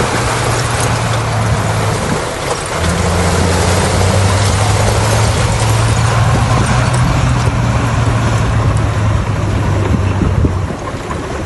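Bulldozer's diesel engine running under load, its note dropping lower about two and a half seconds in and holding there, with a short dip near the end, over a steady rushing noise.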